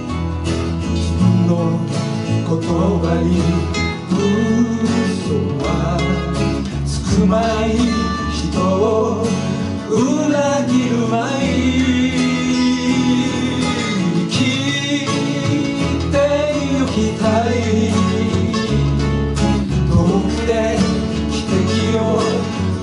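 Small group of guitars, acoustic and electric, playing a folk song live, with a man singing over them.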